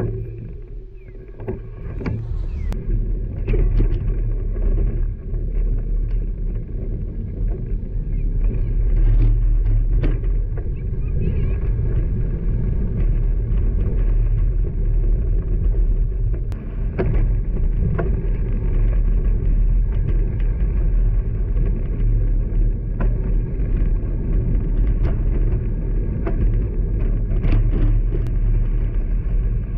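Steady low rumble of wind and road noise from a road bike riding along a busy road, with passing motor traffic and a few brief clicks.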